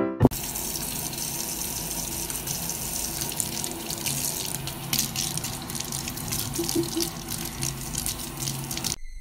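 Kitchen tap running in a steady stream into a stainless-steel sink, splashing over a cat's head and fur. It cuts off abruptly near the end.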